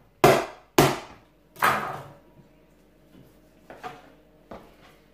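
Large kitchen knife chopping down through a chicken wing onto a plastic chopping board: three heavy chops in the first two seconds, then two lighter knocks near the end.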